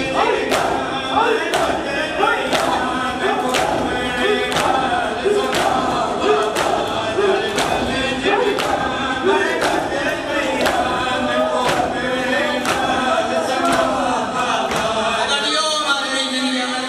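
Men beating their chests in matam, a crowd of sharp slaps in time at about two a second, under a noha chanted by a chorus of male voices. The slaps stop near the end while the chanting goes on.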